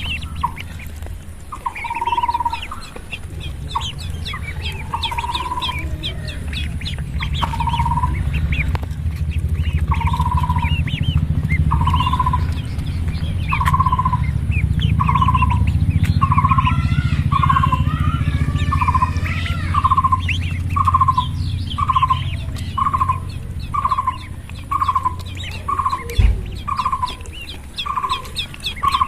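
A group of duck chicks peeping continuously in many quick high chirps, with a lower repeated peep about once a second that comes faster in the second half, over a steady low hum.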